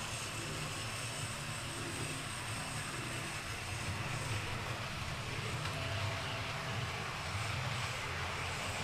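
Model railway trains running on the layout: a steady hum and rumble from the small electric locomotive motors and the wheels rolling on the track.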